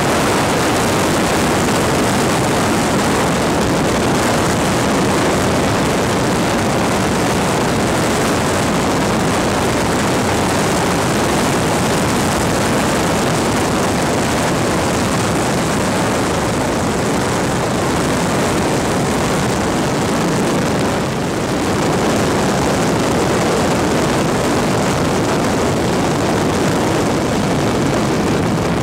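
A loud, steady engine drone mixed with rushing noise, with a brief dip about three quarters of the way through.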